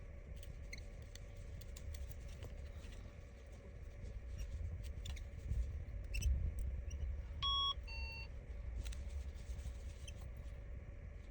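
Two short electronic beeps in quick succession about seven and a half seconds in, the second lower in pitch, over faint scattered clicks and taps of small tools working on the phone.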